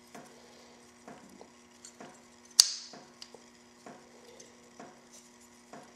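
Light clicks and taps of metal parts being handled as the heat shield is turned off an aluminium transmission governor solenoid housing, with one sharp, louder click about two and a half seconds in.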